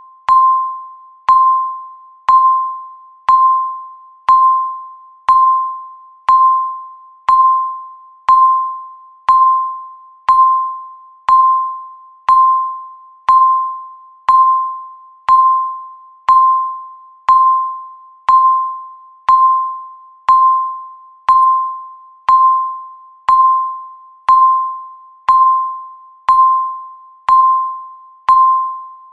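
Countdown timer's electronic beep, one single-pitched tone struck once a second, each starting sharply and fading away before the next.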